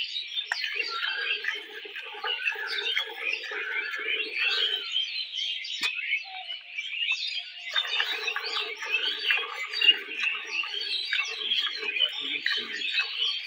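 Milk squirting in quick spurts into a steel bucket as a desi cow is hand-milked. The spurts stop for a few seconds in the middle, with a single knock near 6 s as the bucket is handled, then resume. Birds chirp continuously throughout.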